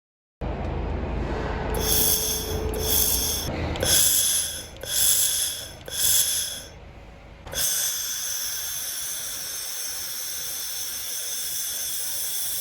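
Handheld fiber laser welder at work: four or five short hissing bursts, each under a second, then a steady hiss from about halfway through.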